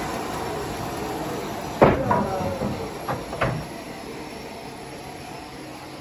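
Steady hum of running sawmill machinery, broken a little under two seconds in by four hard knocks of timber being handled, the first the loudest, spread over about a second and a half.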